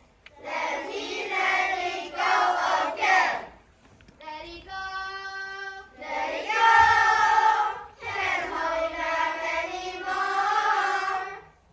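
A group of children voicing lines together in unison, in a sing-song chant, in two stretches. Between them, a single high note is held steady for about a second and a half.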